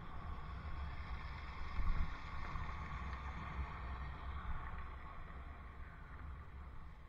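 Wind rumbling steadily on a helmet-mounted microphone while cycling, with a hiss that swells about two seconds in and fades toward the end.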